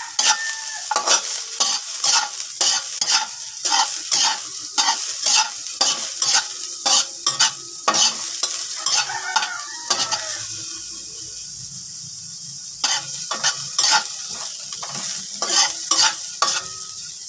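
Metal spatula scraping and stirring sliced onion in an aluminium wok over a gas flame, about two strokes a second, over a steady sizzle of frying in butter. The strokes stop for a couple of seconds about ten seconds in, leaving only the sizzle, then start again.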